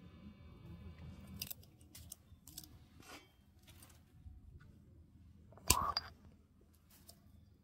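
A handful of short, sharp snips and clicks, with one louder clack a little under six seconds in.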